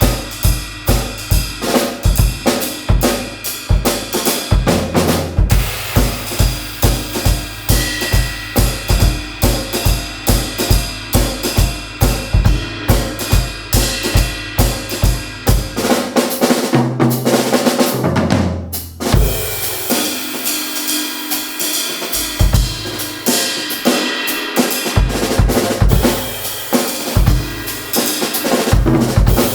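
Drum kit played live: a driving, even kick-drum beat under snare and cymbals. About sixteen seconds in, the kick drops out for a short low tom fill, and the groove goes on lighter and cymbal-led before the kick comes back near the end.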